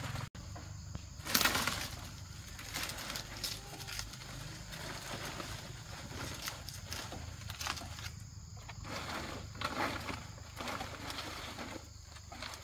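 Palm fronds rustling and swishing as they are handled and pushed into place on a bamboo roof frame, in irregular bursts with the loudest about a second in.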